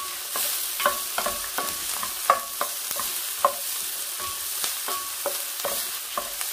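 Chopped onion and garlic sizzling in oil in a stainless steel pan while a spatula stirs them, scraping and knocking against the pan bottom. The knocks come irregularly, several a second, each with a short metallic ring over the steady sizzle.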